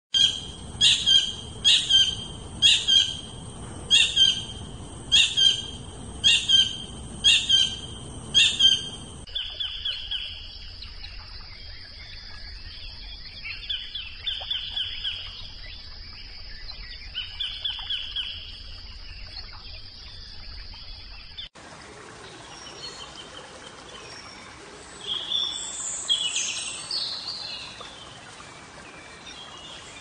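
Collared kingfisher giving loud, harsh calls, repeated about once a second for some nine seconds. After a cut come scattered shorter bird calls over a steady high-pitched drone, and after a second cut more bird calls, loudest near the end.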